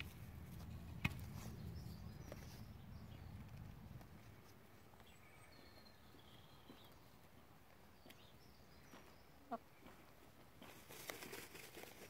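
Faint scratching and rustling of chickens dust bathing in dry sand, with a short rising call about nine and a half seconds in and a burst of scratching near the end.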